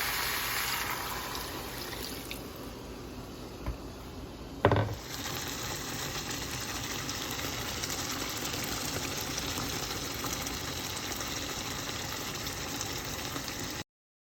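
Steady rush of running water, easing off for a few seconds and then picking up again, with one sharp thump about five seconds in. The sound cuts off abruptly near the end.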